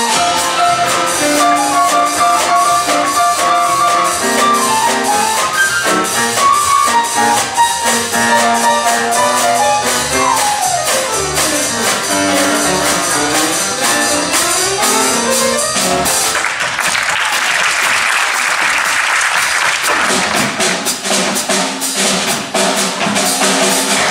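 Small trad jazz band playing: a piano solo over upright bass and drums, with fast runs sweeping up and down the keyboard. About two-thirds of the way through, the piano lines give way to a noisy wash, and the band then plays on.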